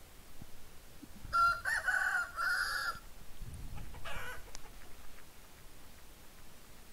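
Recorded chicken call: one call of about a second and a half in several short pieces, starting just over a second in, then a shorter, fainter call about four seconds in.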